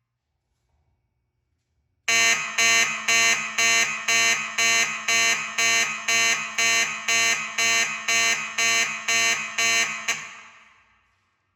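Simplex 2901-9833 fire alarm horns sounding in march-time pulses, about two a second. They start about two seconds in, stop about ten seconds in, and the sound echoes away afterwards.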